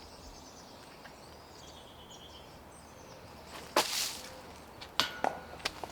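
A disc golf putt striking the basket: a sudden loud rattle about four seconds in, then a sharp metallic clank with a brief ring and a couple of lighter knocks. Faint birds chirp before it.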